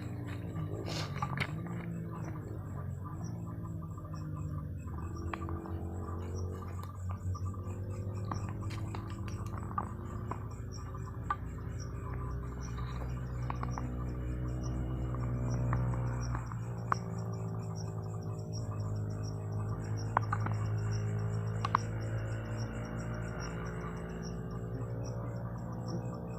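Slow background music of held low tones that drift in pitch, with crickets chirping in fast, even pulses behind it and a few faint clicks.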